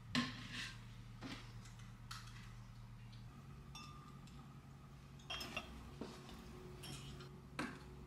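Scattered light clinks and taps of a glass teapot, a glass cup and a stainless steel tea warmer being set down and handled on a wooden desk, with a sharper knock just after the start. A faint steady hum runs underneath.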